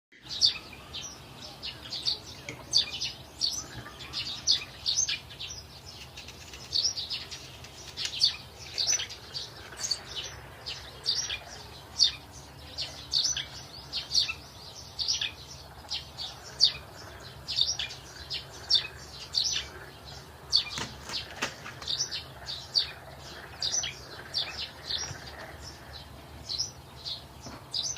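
Small birds chirping: many short, high, downward-sliding chirps, several a second, over a faint steady low hum.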